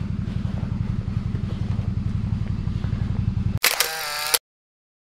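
Motorcycle engine running at low revs with a steady pulsing beat, cut off abruptly about three and a half seconds in. A short camera-shutter sound effect follows, then silence.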